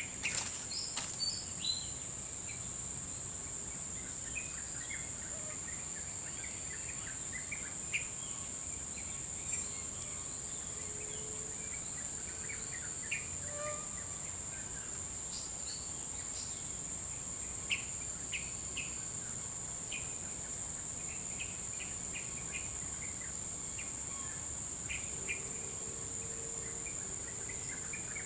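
Tropical bush ambience: a steady high-pitched insect buzz, with scattered short bird chirps and a low haze of distant traffic. A few sharp clicks come in the first two seconds.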